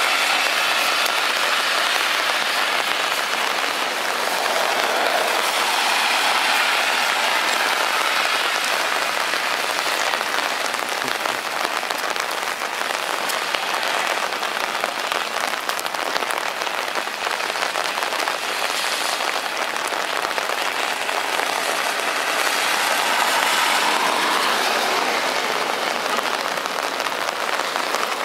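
Rain falling steadily on wet ground and road, an even hiss, with louder swells about five seconds in and again near the end as car tyres swish through water on the wet road.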